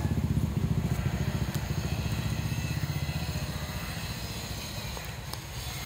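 An engine running with a rapid low pulsing, slowly fading over several seconds.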